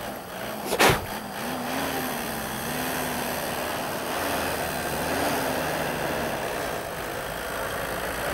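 Toyota Land Cruiser engine labouring as the 4x4 ploughs through deep snow, its pitch wavering up and down. There is a sharp knock about a second in.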